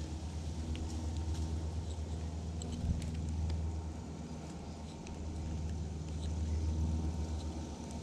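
Low rumble of wind buffeting the microphone, with scattered faint clicks from a baitcasting reel being handled and turned while a backlash (bird's nest) is picked out of the line.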